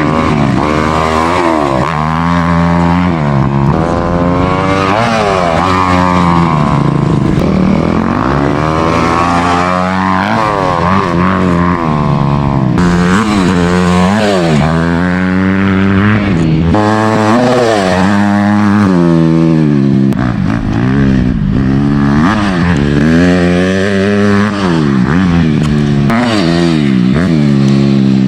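Dirt bike engine being ridden hard, revving up and dropping back again and again as the rider works the throttle around the track.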